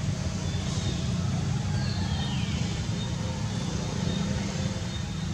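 Steady low rumble of outdoor background noise, with a faint high note falling in pitch about two seconds in.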